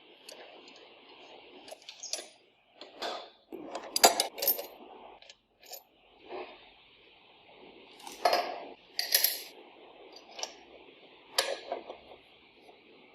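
Small metal parts and hand tools clinking and knocking against each other. The clinks come irregularly, about a dozen, with the loudest knock about four seconds in, over a faint steady hiss.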